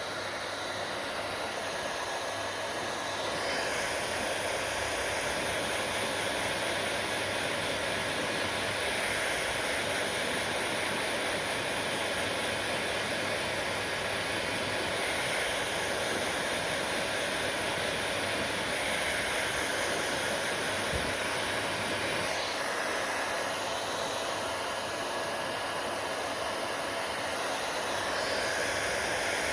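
Hair dryer running steadily: an even rushing hiss of motor and airflow, its brighter upper tone shifting every few seconds.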